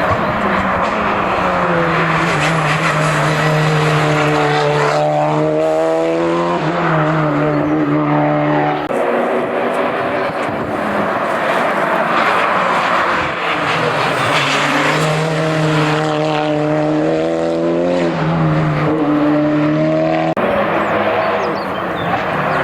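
Hillclimb race car engine running hard up the course, its revs climbing and dropping again and again through gear changes.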